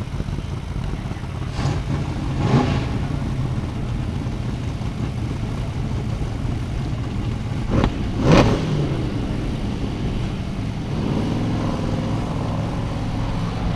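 Formula Offroad buggy engine running with a steady low rumble and revved sharply twice, about two seconds in and again, loudest, about eight seconds in.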